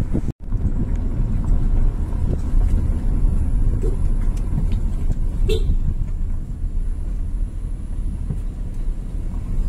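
Steady low rumble of a moving vehicle's engine and road noise, cutting out for a split second near the start.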